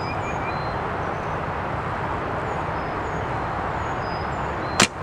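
Strong wind buffeting the microphone as a steady rushing noise, with faint high chirps above it. Near the end comes one sharp snap.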